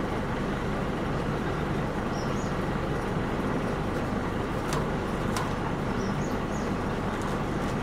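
A heavy vehicle's engine running steadily at an even pitch, with a few short high chirps over it and two sharp clicks about five seconds in.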